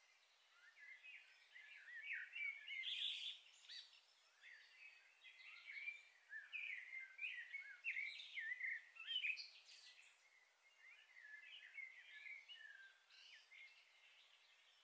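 Faint chirping of small birds: many short, quick calls that bend up and down in pitch, busiest in the middle and thinning out near the end.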